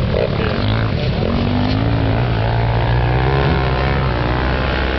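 Off-road motorcycle engines running together in a continuous drone, with revs rising about a second in and wavering through the middle.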